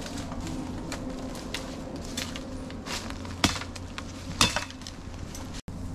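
Footsteps crackling through dry leaf litter, twigs and bamboo stems, with scattered small snaps and two louder sharp cracks about three and a half and four and a half seconds in, over a steady low hum.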